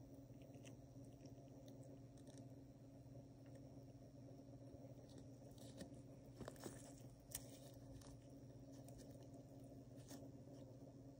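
Near silence: a faint steady room hum with soft scattered clicks and rustles of gloved fingers handling and turning a coin, bunched together about six to seven seconds in as the coin is turned over on its edge.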